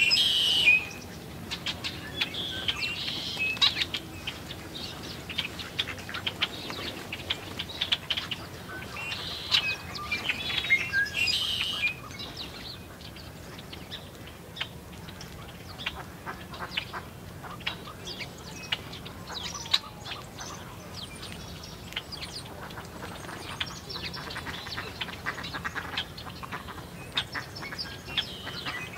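Small songbirds chirping and twittering all through, many short high chirps, with louder clusters of calls in the first second and again about ten seconds in.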